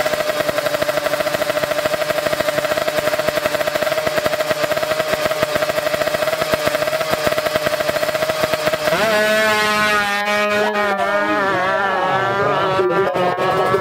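Two-stroke 155cc drag bike engine held at steady high revs for about nine seconds. The revs then break up and waver, with sharp pops and crackles.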